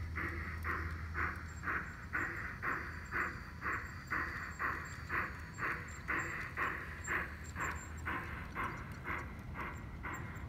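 Garden-railway model steam locomotive chuffing steadily at about two chuffs a second as it runs, with a low steady hum underneath.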